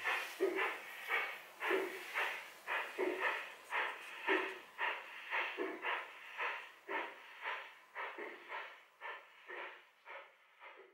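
Garden-scale model steam locomotives chuffing in a steady beat of about two chuffs a second, growing fainter as the trains pull away.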